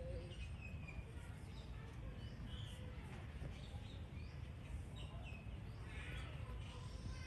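Short, faint, high-pitched chirping calls from a small animal or bird, scattered and clustering about six seconds in, over a steady low rumble.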